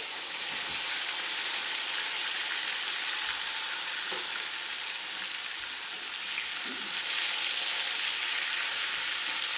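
Flour-dusted bangamary fish fillets sizzling steadily in hot oil in a frying pan.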